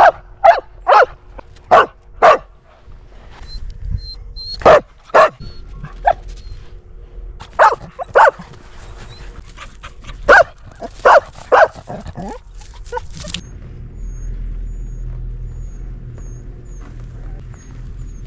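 Dog barking repeatedly, about thirteen sharp barks in pairs and small clusters, stopping about thirteen seconds in. A steady low rumble follows.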